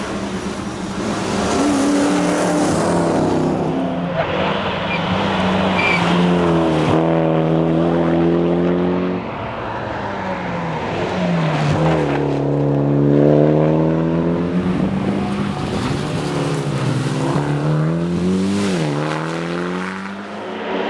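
Mitsubishi Lancer Evolution X's turbocharged four-cylinder engine driven hard at racing pace, its pitch climbing under acceleration, then dropping sharply and climbing again, several times over.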